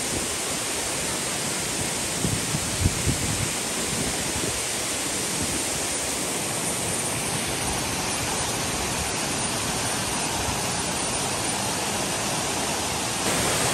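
Steady rush of a jungle waterfall and river, the water running brown and muddy. A few brief low bumps come about two to three seconds in, and the rush grows louder near the end.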